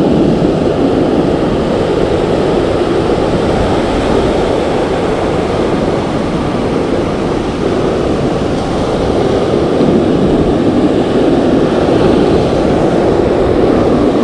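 Breaking ocean surf: a steady, loud wash of noise with no pauses.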